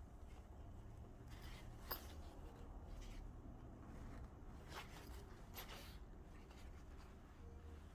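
Faint rustling of fabric and thread being handled as a backpack's lining is sewn together, with a few soft clicks, over a low steady hum.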